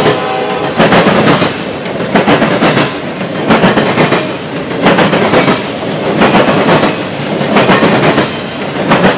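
A Triple Crown RoadRailer train rolling past, its trailers riding on steel-wheeled rail bogies, with wheels clacking over rail joints in a steady rhythm, a loud group of clacks about every second.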